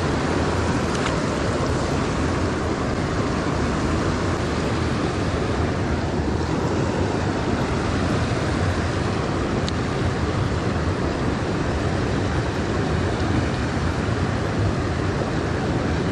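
Shallow river riffle rushing steadily, the water churning close to the microphone.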